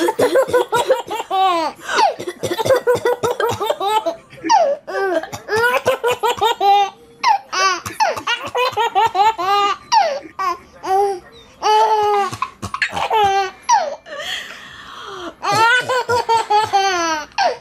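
A baby laughing hard: several long fits of rapid, high-pitched belly laughs, each a quick run of pulses, with short pauses between them.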